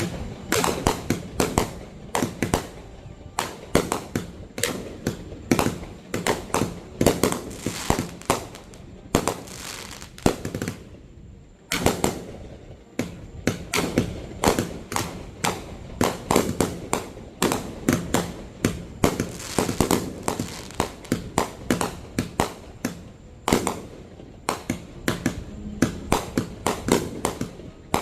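Fireworks going off in rapid succession: dense, sharp bangs, several a second, each trailing off into a rumble, with a brief lull about twelve seconds in.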